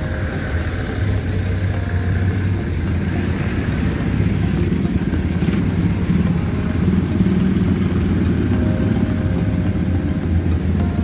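A motor vehicle engine running steadily with a low hum, rising slightly in the middle.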